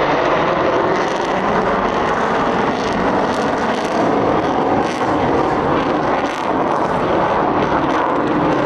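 F-35B's single F135 jet engine in afterburner, a loud, steady jet roar as the fighter banks through a high-g turn.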